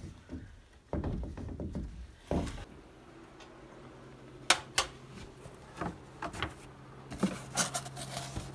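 Handling noise of objects being moved: two dull bumps, then scattered sharp clicks and knocks as a cardboard box and the things in it are handled, busiest near the end. A faint low steady hum sits underneath from a few seconds in.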